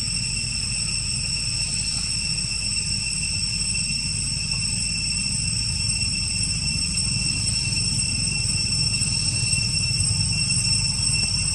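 Steady, unbroken high-pitched insect chirring, with a low rumble underneath.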